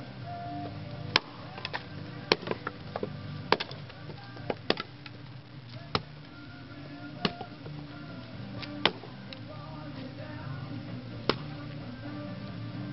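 Axe blows splitting firewood rounds: sharp cracks roughly every second or two, unevenly spaced, over steady background music.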